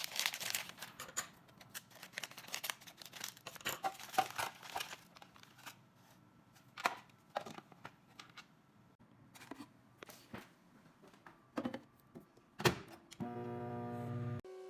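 Hands handling food packaging and containers: crinkling, rustling and light clicks, with one sharp click near the end. About a second before the end a steady low hum starts, the kind a microwave oven makes once it is switched on.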